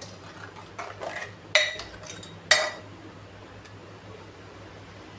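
A ladle clinking and scraping against a metal cooking pot while thin curry is stirred, with two loud ringing clinks about a second apart near the middle and a few lighter knocks before them. A low steady hum runs underneath.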